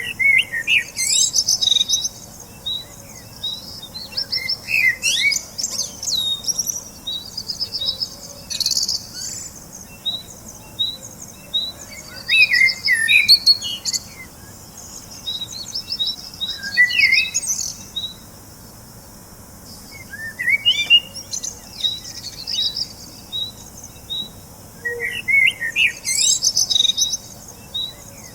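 Birds chirping and twittering: a short high note repeats about twice a second throughout, with bursts of busier chirps and trills every few seconds.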